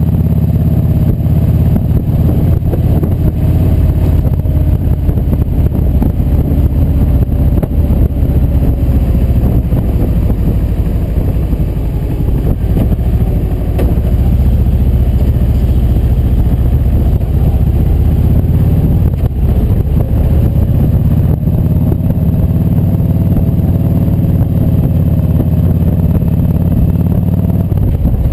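Kawasaki Vulcan 1700 Voyager V-twin running steadily at cruising speed, heard from a camera mounted on the moving bike, mixed with a low rumble of wind and road noise. The engine note dips and rises slightly with the throttle.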